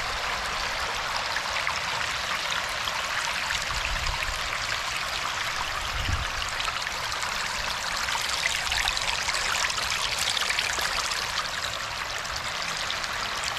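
Water running steadily, an even rushing like a small stream or water pouring through a channel, with a couple of faint low thumps about four and six seconds in.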